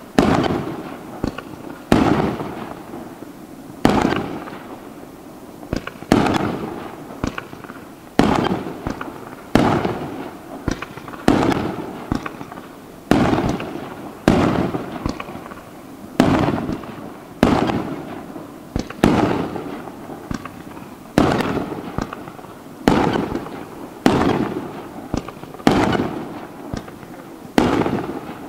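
Aerial firework shells bursting in quick succession, about one loud boom a second, each boom dying away over about a second before the next.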